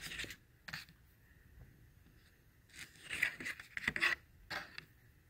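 Stiff game cards sliding and scraping against one another and the tabletop as a card is laid onto a fanned stack: two short scrapes at the start, then a longer run of scraping and rubbing in the second half.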